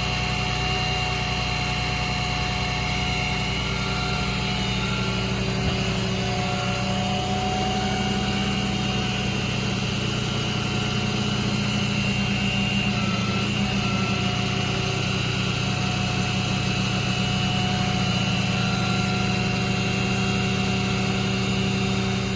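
The truck's 6.7 Cummins diesel engine running steadily, with steady high whines held over the engine note.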